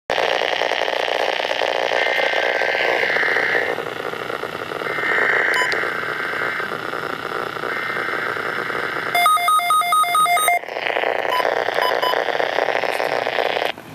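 Midland WR-120 weather radio hissing with static, with three bursts of SAME digital alert-header tones heard through it, then a rapid string of electronic beeps for about a second and a half and a few single beeps. The radio reads the alert code as unrecognized. The hiss cuts off suddenly near the end.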